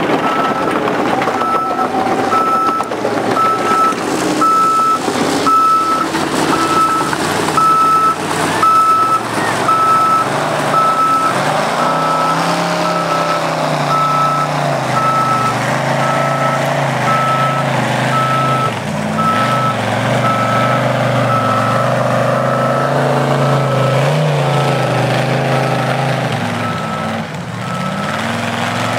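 A vehicle reversing alarm beeping steadily, a little faster than once a second, over a heavy engine that is heard running from about halfway, its pitch wavering. Scattered knocks and clatter in the first half.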